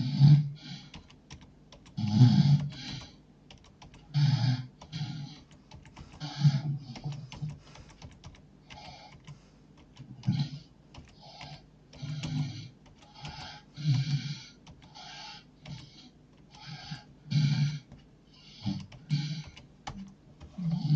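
A man snoring heavily and rhythmically, a rasping snore roughly every two seconds, with scattered faint clicks in between.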